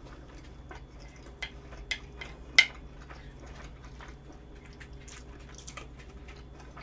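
Cutlery clinking against a dish a few times as food is eaten, the sharpest clink about two and a half seconds in, over a low steady room hum.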